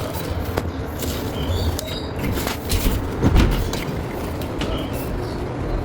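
Samsung washer-dryer drum running with a steady low rumble and irregular knocks, noise that points to play in the drum bearing housing.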